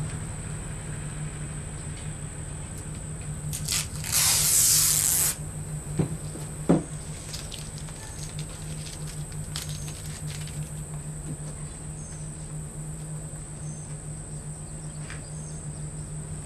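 Tape being peeled off a sword blade: one loud crackling rip lasting about a second, about four seconds in, followed by two light knocks. A steady low hum runs underneath.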